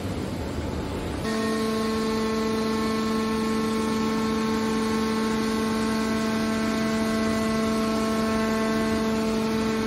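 Hydraulic scrap metal baler at work: a low rumbling noise, then from about a second in a steady hum with several even overtones from its hydraulic pump and electric motor, holding unchanged.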